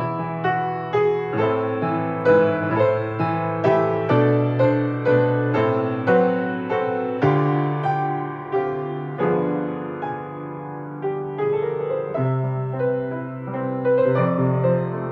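Solo piano music: melody notes struck about twice a second over held low chords, each note sounding and fading.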